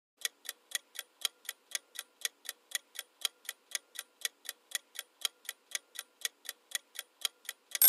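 Countdown-timer sound effect: a clock ticking evenly, about four ticks a second, alternating louder and softer. Right at the end it gives way to a loud ringing bell as time runs out.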